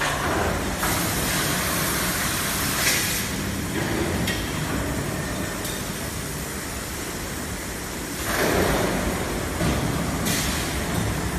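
Automatic bag conveying and sewing machine running with a steady mechanical drone, broken several times by hisses of compressed air from its pneumatic parts, near the start and again near the end.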